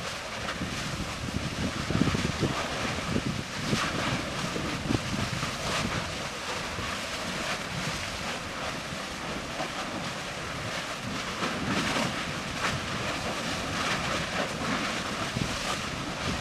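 Wind buffeting the microphone, over the surf-like churning of the Erta Ale lava lake, with irregular surges every few seconds.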